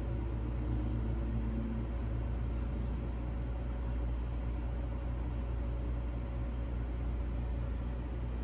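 Philips Avent electric bottle warmer running while it heats a bottle: a steady low hum and rumble.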